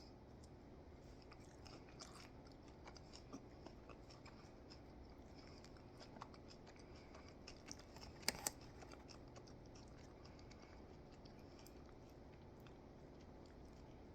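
Faint chewing and crunching of crisp tater tots, with a couple of sharper crunches about eight seconds in.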